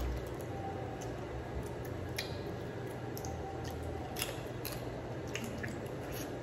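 Steamed blue crab being picked apart by hand: irregular small sharp clicks and crackles of shell breaking, with wet squishing, over a steady low hum.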